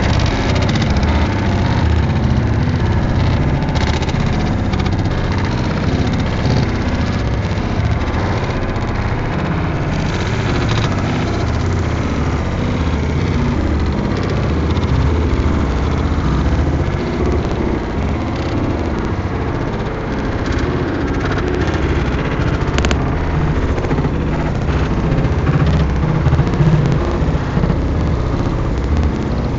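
Automatic car wash heard from inside the car's cabin: a steady, loud low rumble of the wash machinery, with water and equipment drumming on the body.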